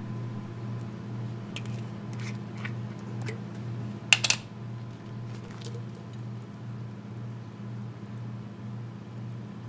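A glass sauce bottle handled over a plate: a few light clicks and taps, then a sharp clatter of clicks about four seconds in. A steady low hum runs underneath.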